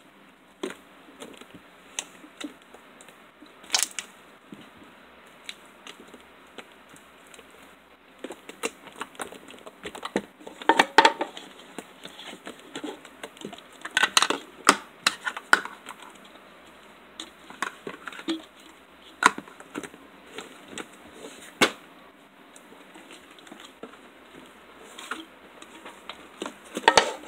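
White hard top slime being squeezed, stretched and poked by hand, giving irregular sharp clicks and pops, busiest around the middle.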